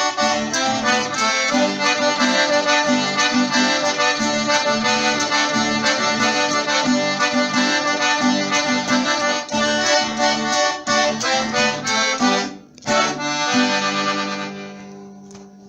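Accordion playing an instrumental passage of a gaúcho bugio, with a short break about three-quarters of the way through, then one held final chord that fades out near the end.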